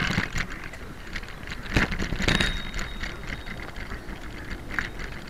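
Bicycle rattling and knocking as it rolls over platform paving, heard from a camera mounted on the bike, with a cluster of sharper knocks about two seconds in.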